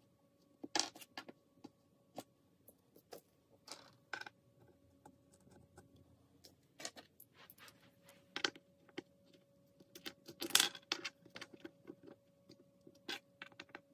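Small metal furniture fittings clinking and clicking as they are handled and pushed into the pre-drilled holes of a particle board panel: irregular sharp clicks, the loudest cluster about three quarters of the way through, over a faint steady hum.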